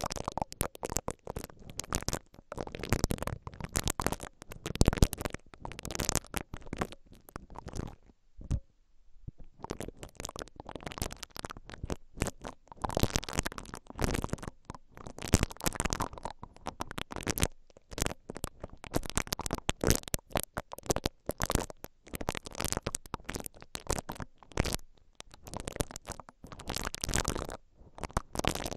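Spiky silicone ear-pick brush rubbed and twisted on the metal mesh grilles of a stereo X/Y microphone, right on the capsules, making a dense run of scratching clicks. There is a short pause about eight seconds in.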